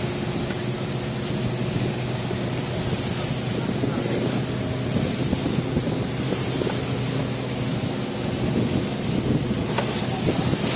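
A fishing boat's engine running at a steady speed, with wind on the microphone.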